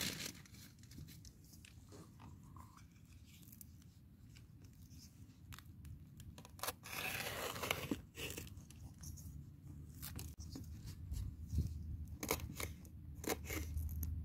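A knife cutting into a red bell pepper on a plastic chopping board, working out the seeds: faint scattered crisp cuts and clicks, with a longer tearing scrape about seven seconds in. A low rumble comes in near the end.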